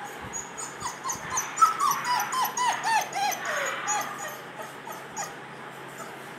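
Cane Corso puppy whimpering: a quick string of short, high whines, each dropping in pitch, about four a second, tailing off about five seconds in.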